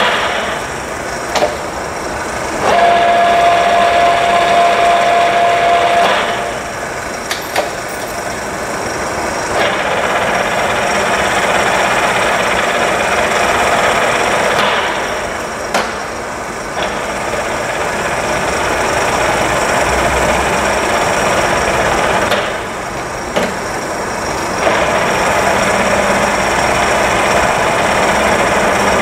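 Huron MU6 universal milling machine running, its noise swelling in spells of several seconds and dropping back between them, with a steady whine in the first spell. Short sharp clunks come in the dips as the machine's control levers are worked.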